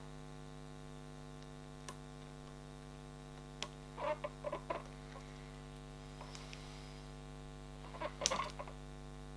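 Steady electrical mains hum, with scattered small plastic clicks and taps as RC car turnbuckle rod ends are handled and pressed onto their ball studs. The clicks come singly about two and three and a half seconds in, then in a cluster around four seconds and a louder cluster near the end.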